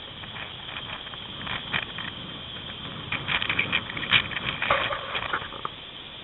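Boots crunching and scuffing through loose dirt and gravel, in irregular steps. The scrapes and crunches come thicker and louder in the second half, as dirt is kicked up.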